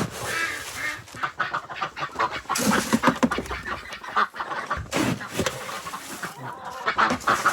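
A mixed flock of hens and ducks calling: a busy, overlapping chatter of short clucks and quacks.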